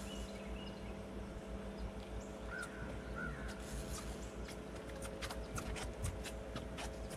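A bird calling twice, a short harsh call repeated less than a second apart, over a steady low hum. A run of sharp, irregular clicks follows in the second half.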